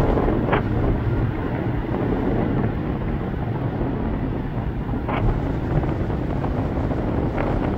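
Wind buffeting the microphone over the steady rush of the Niagara River's whitewater rapids: a continuous low rumble and hiss.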